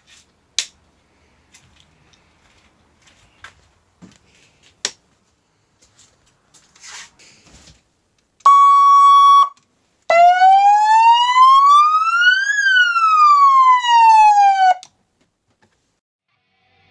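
Electronic police siren fitted to a kids' ride-on car: after a few faint clicks, a steady electronic horn tone sounds for about a second, then one slow wail rises and falls in pitch over about five seconds and cuts off suddenly.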